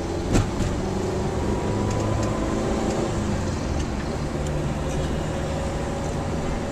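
Car engine and road noise heard from inside a moving car's cabin, steady throughout, with one sharp click about a third of a second in.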